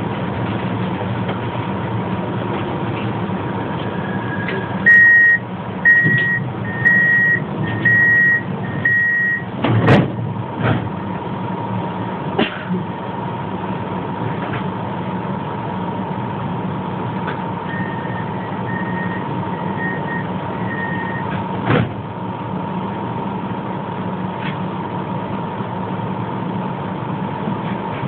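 Inside a Pesa 120Na Swing low-floor tram standing at a stop: a steady electrical hum from its equipment, then about five high door-warning beeps, one a second, ending in a loud knock as the doors shut. Later a fainter run of four similar beeps, then a sharp click.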